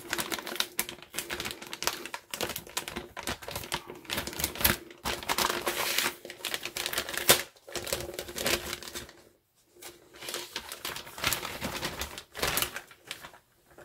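Metallised anti-static bag crinkling and crackling as it is handled and opened to get a motherboard out: a dense, irregular run of small crackles, with a short pause about nine and a half seconds in.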